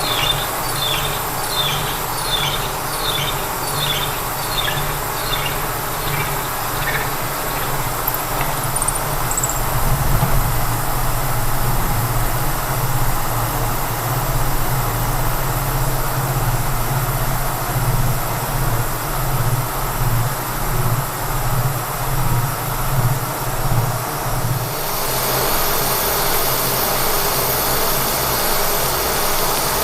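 Knee mill running with a roughing end mill cutting steel under power feed: a steady low machine hum with a pulsing throb as the cutter works. A row of short high squeaks repeats about twice a second in the first few seconds, and a hiss grows louder about 25 seconds in.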